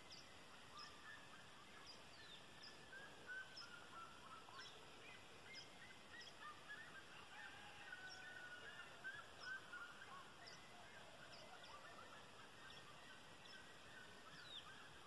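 Faint birds calling: a high, thin chirp repeating about once a second over a chatter of several birds with short, quick notes, the chatter busiest in the middle.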